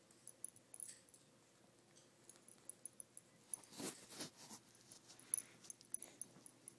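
Brussels Griffon / Shih Tzu–miniature poodle mix puppies play-fighting on carpet: faint scattered clicks and scuffling, with a short louder burst of noise about four seconds in.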